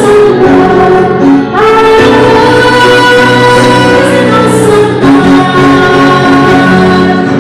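Choral music with singing voices, likely a sacred or church choir piece, playing steadily as background music.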